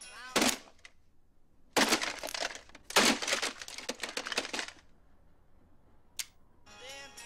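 A song on a clock radio is cut off by a hit, followed by loud crashing and crunching as the plastic clock radio is smashed. Near the end a flip clock's number card drops with a single click, and the music starts up again.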